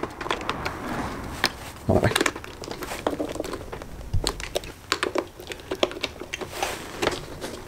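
Plastic clicks and rustling as relays are handled and pushed into the sockets of a BMW E30's fuse and relay box, a scattered series of sharp clicks over a low handling rustle.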